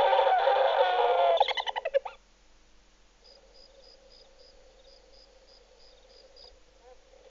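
Loud, repeated bird-like calls in falling phrases break into rapid clucks and stop about two seconds in. A faint run of high, evenly spaced chirps follows, about three a second.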